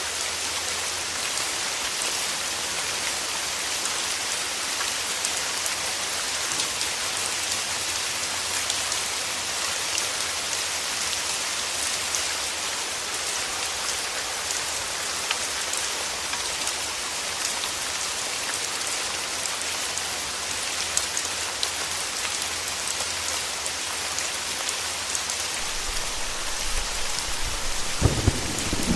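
Steady rain falling. A low rumble of thunder comes in near the end.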